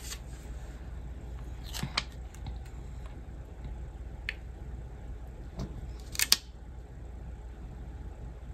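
Sticker and paper being handled and pressed onto a planner page: a few soft clicks and taps of fingertips and nails on paper, the loudest about six seconds in, over a low steady hum.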